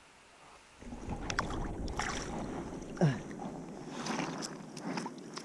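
Faint hiss, then about a second in, close rustling and scraping with many sharp clicks and knocks, with a short falling squeak near the middle: handling noise from the camera being moved about and gear being handled close to the microphone.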